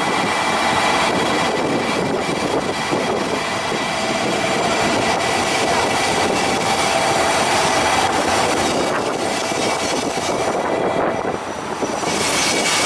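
Diesel sightseeing train, JR Kyushu's Aso Boy, pulling into the platform and rolling slowly past: a loud, steady engine and running noise with a faint thin whine, and a brighter hiss coming in near the end.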